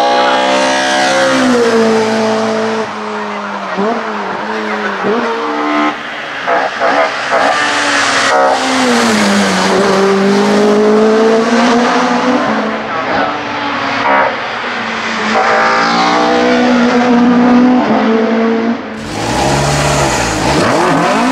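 Opel Kadett C 16V hillclimb car's engine at full throttle, its pitch climbing through each gear and dropping at the shifts and on lifting for bends, with quick throttle blips on downshifts. The engine is loudest as the car passes close by. About two seconds before the end the sound cuts away to a lower engine rumble.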